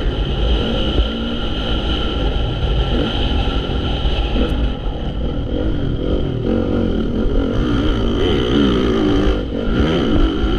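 Honda CRF450 motocross bike's single-cylinder four-stroke engine being ridden hard, revving up and down over and over as the rider works the throttle.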